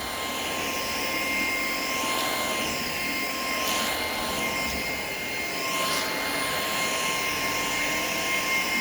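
Shark PowerDetect vacuum cleaner running steadily, a motor hum with a high, even whine and a slowly wavering hiss on top.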